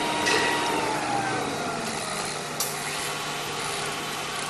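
Outdoor background noise with a motor vehicle going by, its engine tone sliding down in pitch about a second in, and a brief sharp click near the middle.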